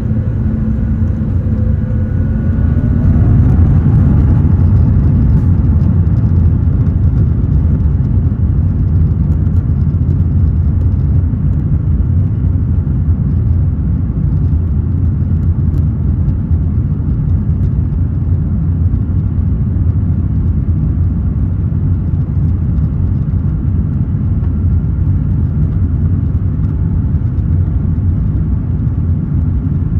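Airbus A350-900's Rolls-Royce Trent XWB engines heard from inside the cabin, spooling up to takeoff thrust: a whine rising in pitch a few seconds in, then a steady loud low rumble through the takeoff roll.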